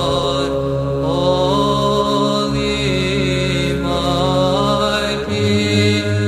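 Byzantine chant: voices holding a steady drone note under a slow, ornamented sung melody. The drone note changes about five seconds in.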